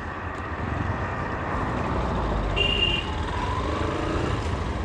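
Vehicle riding noise, a steady rumble of engine and wind on the road, with a short horn toot about two and a half seconds in.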